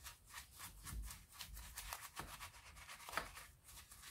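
Soft old paintbrush scrubbing the soapy slate case of a clock, faint quick brush strokes repeating several times a second, with one louder stroke about three seconds in.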